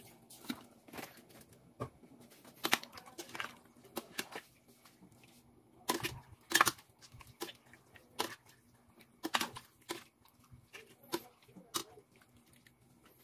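A metal spoon stirring raw chicken livers in vinegar in a stainless steel pot: irregular clinks and scrapes against the pot, a few each second.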